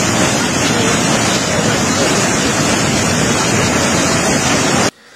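Floodwater of a wadi in spate rushing steadily and loudly over a street, a dense, even rush with no pitch to it. It stops abruptly near the end.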